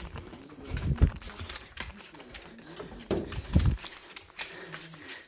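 A cat at hunting play with a toy: quick clicks and clatters of claws and toy on the floor, with two heavy thumps about a second in and again about three and a half seconds in.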